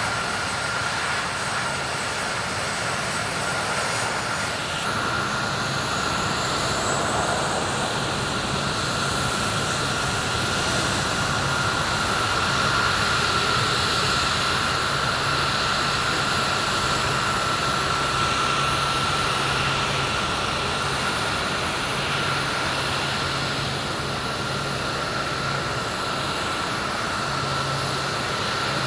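KC-135 Stratotanker CFM56 turbofan engines running at taxi power: a steady rushing jet noise with a constant high whine.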